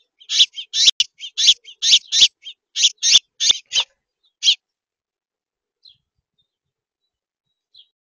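A small songbird at the feeder chirping close to the microphone: a rapid series of about fifteen loud, short chirps over the first four and a half seconds, then two faint chirps near the end.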